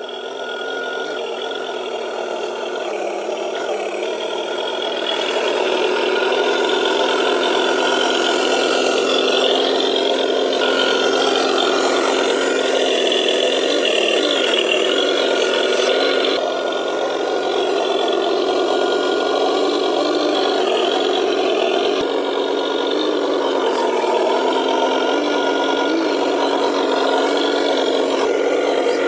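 Simulated truck engine sound from the Tamiya Unimog RC scale truck's sound unit, running steadily with small shifts in pitch as the truck crawls. It fades in over the first few seconds.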